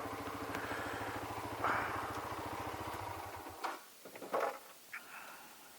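Motorcycle engine idling in neutral with a steady pulse, then cut off abruptly about three and a half seconds in, leaving a few small clicks and rustles.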